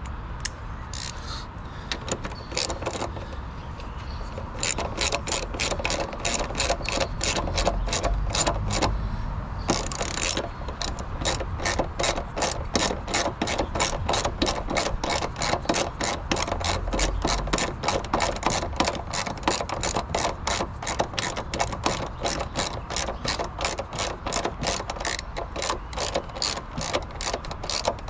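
Hand ratchet wrench clicking evenly, about three clicks a second, as nuts on the car's front suspension strut are run down and tightened, with a short scrape about ten seconds in.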